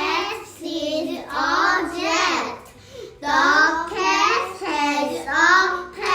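Young children singing in high voices, a rhythmic run of drawn-out syllables.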